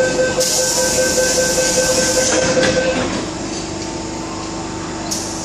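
MTR M-Train passenger doors closing: the door-closing warning beeper sounds steadily while the doors slide shut with a hiss of air, and it stops as they shut with a knock about three seconds in. A short hiss of air follows near the end.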